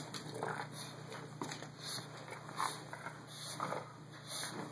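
English bulldog playing tug with a towel, giving short grunts and breaths about once a second, with the fabric rustling as it is dragged on carpet.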